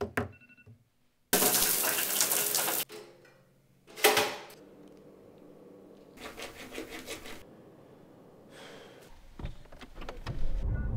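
A string of short everyday sounds cut together: brief taps and short tones from a phone, then about a second and a half of water running from a tap, and a single sharp, loud noise. Near the end a car engine starts from a push button and runs with a low rumble.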